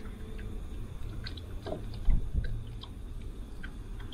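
Light clicks and small knocks over a low rumble, with one heavy thump about two seconds in: handling and knocking noise on a small fishing boat on the water.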